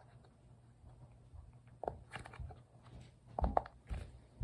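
Silicone bubbles of a dimple fidget toy being pressed in with the fingers, giving a few soft, separate pops and clicks, most of them in the second half.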